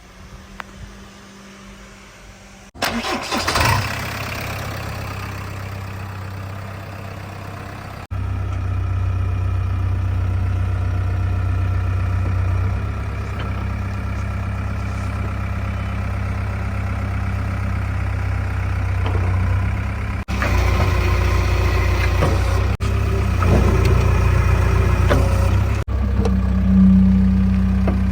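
A diesel engine starts about three seconds in and then runs steadily at low revs. It gets louder about eight seconds in, and the sound breaks off abruptly several times where the footage is cut.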